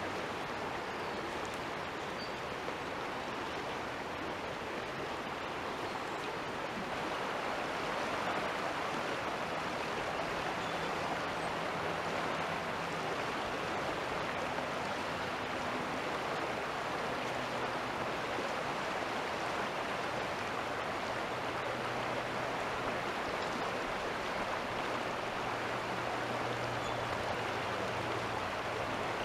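Fast-flowing creek rushing over a shallow riffle, a steady even rush of water that grows a little louder about seven seconds in.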